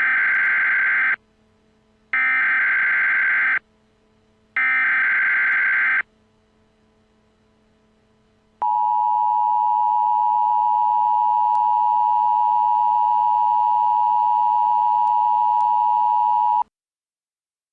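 Emergency Alert System tones: three bursts of digital header data tones of about a second and a half each, a second or so apart, then the steady two-tone attention signal held for about eight seconds before it cuts off.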